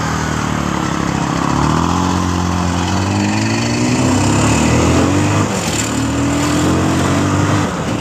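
Bajaj Pulsar 220F's single-cylinder engine running under way. The engine note rises as the bike accelerates over the first few seconds, dips briefly about five and a half seconds in, then holds steady, with a rushing noise behind it.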